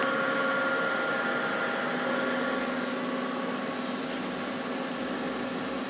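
Daewoo Puma 15 CNC lathe running: a steady machine hum and whine holding a few fixed tones, slowly getting quieter.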